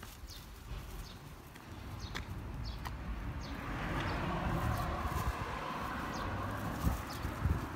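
Small birds chirping: short, quick falling chirps repeated every second or so. About halfway through, a broad rushing noise with a low rumble builds up and holds, louder than the chirps.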